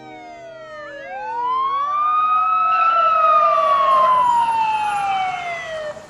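Police car siren wailing: one wail falls away while a new one rises to its highest pitch about three seconds in, then falls slowly and cuts off just before the end.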